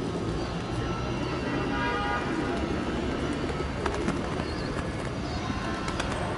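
Pigeons cooing, over a steady low background hum, with a few sharp clicks about four and six seconds in.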